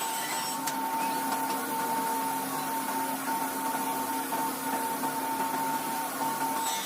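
An electric woodworking power tool running steadily, its motor giving an even whine.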